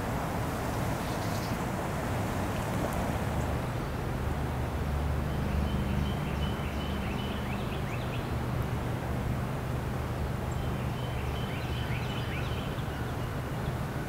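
Wild turkey gobbler gobbling twice, two rapid rattling calls a few seconds apart, over a steady low rumble.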